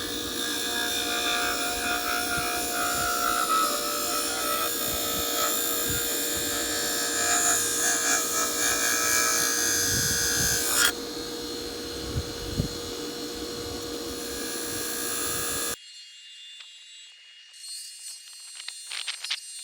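Old bench grinder with MDF buffing wheels charged with buffing compound, running with a steady hum and a hissing rub as a wood lathe tool is honed. The hiss is loudest up to about eleven seconds in, then eases, and the grinder sound cuts off suddenly about sixteen seconds in, leaving a few faint clicks.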